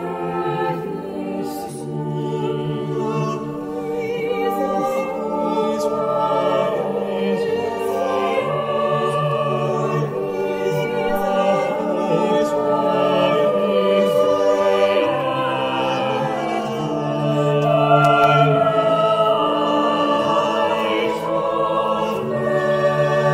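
Mixed-voice choir singing a sacred piece in several parts, holding notes and moving from chord to chord.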